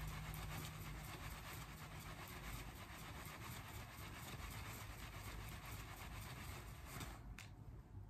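Makeup brush buffing product onto the cheek: a faint, rapid, scratchy swishing of bristles on skin that stops about seven seconds in.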